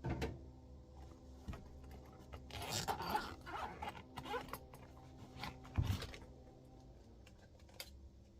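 Handling noises: a few sharp knocks and a stretch of rustling and scraping, as of tools or parts being handled, over a steady low hum.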